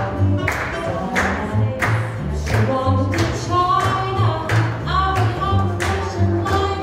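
Swing jazz dance music playing, with a walking bass line, a regular beat of drum hits and a melody line above.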